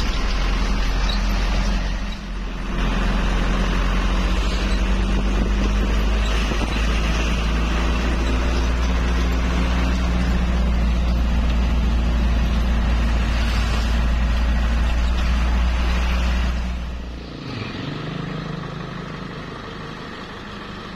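Truck engine and road noise heard from inside the moving cab, a loud steady rumble. About three-quarters of the way through it drops suddenly to a quieter, lower engine sound.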